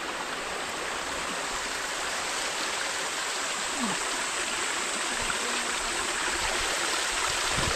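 Stream water flowing, a steady rushing hiss that grows slightly louder toward the end.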